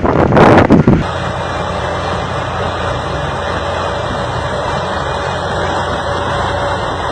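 Heavy diesel engine of a large wheel dozer running steadily as the machine drives along. Before it, about a second of loud, gusty noise cuts off abruptly.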